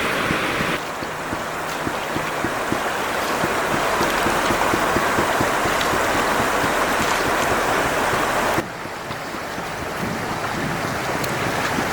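River water rushing as a steady, even hiss. It drops suddenly twice, a little under a second in and about three-quarters of the way through, and each time swells back up.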